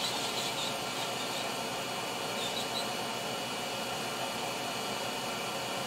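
Hot air rework station blowing steadily onto a circuit board, heating solder at a small component.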